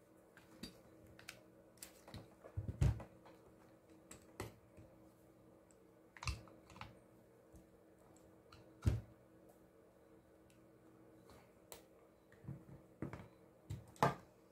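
Irregular clicks and knocks of a Milwaukee M18 drill's plastic housing, battery pack and motor assembly being handled and set down on a silicone work mat, with a faint steady hum underneath.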